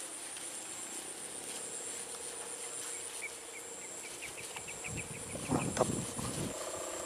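A kite's sendaren (bow hummer) droning steadily in the wind with a low, even hum, over a high insect whine. A few louder low rumbles come about five seconds in.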